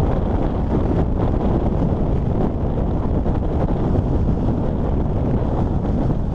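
Steady wind rush buffeting a helmet-mounted action camera's microphone while riding a motorcycle at highway speed.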